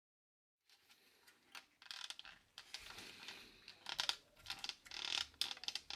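Piano black dashboard trim of a BMW F10 5 Series creaking and crackling in short irregular clicks, starting about one and a half seconds in. The noise comes from plastic tabs behind the trim that have worked loose over time and rub against each other.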